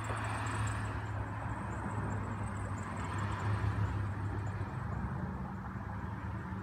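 Motor oil pouring from a plastic jug through a funnel into an engine's oil filler, over a steady low hum.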